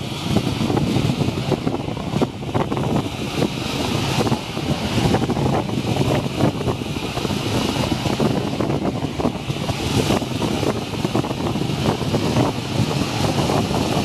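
Rough sea surf: waves crashing and foaming over rocks at the shoreline, with a continuous rushing wash. Strong wind buffets the microphone, adding a low rumble throughout.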